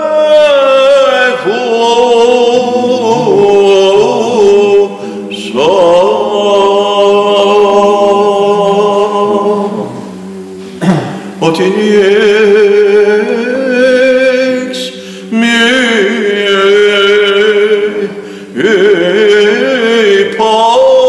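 Byzantine chant: a lead chanter (protopsaltis) sings a winding, pitch-bending melody over a steady drone (the ison) held by other men's voices. The melody breaks off for short pauses between phrases a few times while the drone carries on.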